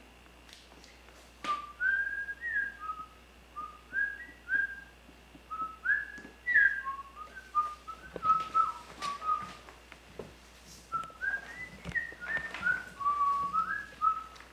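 A person whistling a tune: short clear notes hopping up and down in pitch, starting about a second and a half in, with a brief pause about ten seconds in. Occasional light rustles and taps of paper pages being handled.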